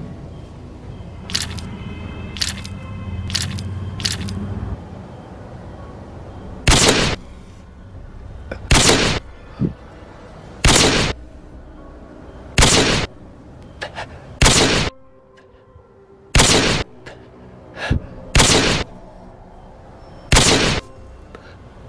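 Edited-in sound effects: four short clicks over a low rumble, then a run of loud, sharp bangs repeating about every two seconds.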